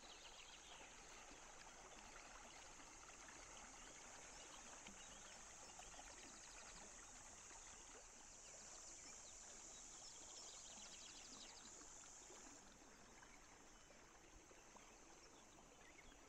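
Faint, steady rush of the Tarn river's flowing white water. A high, even hiss sits over it and cuts off suddenly about three quarters of the way through, and short rapid trills come in twice.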